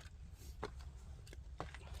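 Faint, scattered light knocks and clicks of split oak firewood pieces being handled, over a low steady hum.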